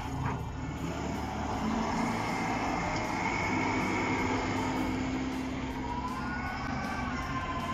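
Diesel engine of a Kirovets K-702 wheeled tractor running steadily under load while it pushes sand with a front dozer blade. A high whine holds over the engine from about a third of the way in, and wavering higher tones join near the end.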